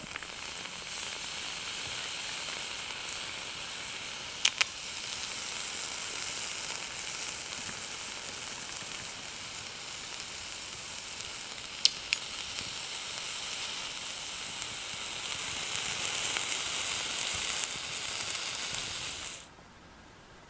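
White sausages sizzling on the hot steel grate of a wood-burning camp stove, a steady hiss with two sharp clicks, about four and twelve seconds in. The sizzle cuts off suddenly near the end.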